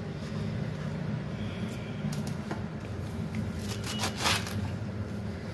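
Hands rustling and gathering a bunch of fresh fenugreek (methi) leaves on a wooden chopping board, with short scraping rustles about two seconds in and again around four seconds, over a steady low hum.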